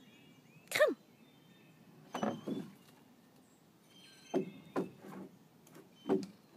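A dog with a large stick held in its mouth makes several short whining sounds, a few seconds apart.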